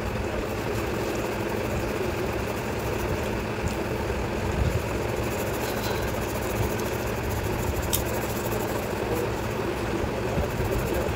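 Steady low hum and hiss with a few faint clicks.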